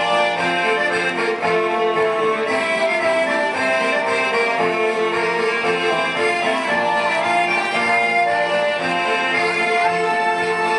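Traditional folk music led by an accordion, playing steadily with sustained chords and melody at an even loudness.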